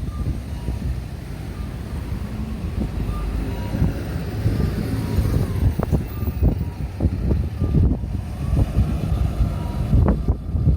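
Road traffic passing, with wind rumbling and buffeting on the microphone.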